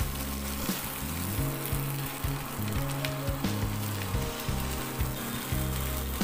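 Boiled potatoes and peas sizzling as they are stir-fried in a nonstick pan, with a wooden spatula scraping and knocking against the pan a few times, over background music.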